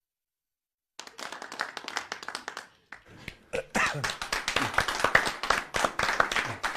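Several people clapping, starting abruptly about a second in after dead silence, with a brief lull about three seconds in; a few voices are faintly mixed in.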